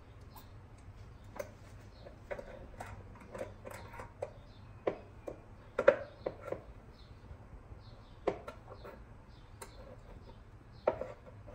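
Irregular clicks and knocks of a metal oven rotisserie rod and its forks being handled as a whole chicken is fitted onto it, the loudest around six seconds in and again near the end.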